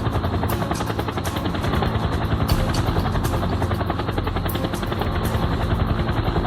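Steady, rapidly pulsing engine drone.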